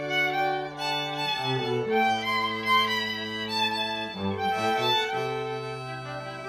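String quartet of two violins, viola and cello playing: low held cello notes that change every second or two under a bowed violin melody and inner voices.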